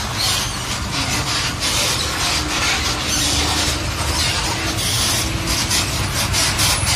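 Auto-rickshaw ride noise from the passenger seat: a steady low rumble of the vehicle on the road under a rough, rushing rattle that comes and goes.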